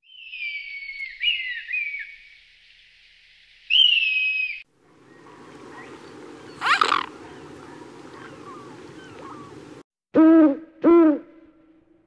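A run of bird calls that changes with each clip. First, shrill thin descending calls from a common kestrel. Then a low rushing noise with one short loud call. Last and loudest, an eagle-owl gives two hoots about a second apart, each rising and falling in pitch.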